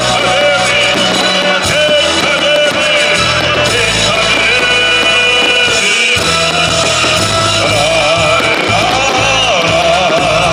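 A song: a male singer with vibrato over instrumental accompaniment with a steady bass line.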